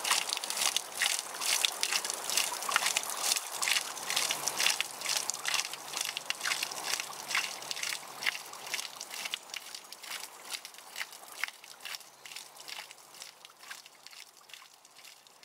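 A thin stream of water falling from a wooden trough spout onto rocks, trickling and splashing unevenly, fading out over the last few seconds.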